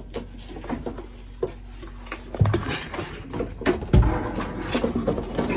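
Knocks and scraping as a 12-gallon Raritan marine water heater tank is shifted by hand into place, with several hard bumps, the loudest about four seconds in.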